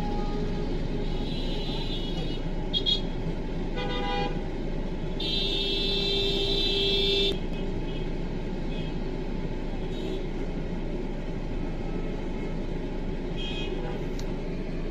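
Congested street traffic with a steady rumble of engines, cut by repeated vehicle horns: several short toots and one long horn blast of about two seconds around the middle.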